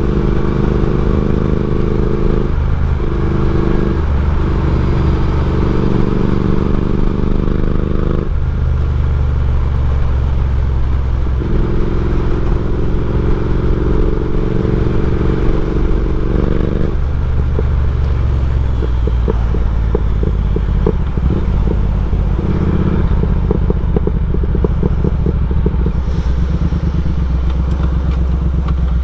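Triumph Speed Twin 1200's 270° parallel-twin engine running through a decat exhaust (X-pipe and slip-on silencers). It holds steady engine notes that step in pitch several times. In the last third it turns to a lower, choppier note with crackling.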